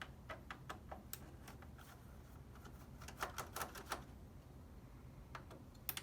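Scattered light clicks and taps of a screwdriver and fingers working at the screws holding a PS4 Slim's power supply, in small clusters about a second in, around three to four seconds in and near the end.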